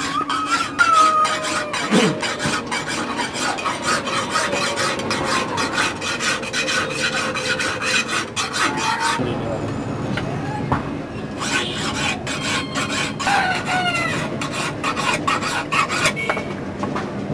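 A hand file rasping against metal in rapid repeated strokes. The strokes pause briefly about nine seconds in, then resume.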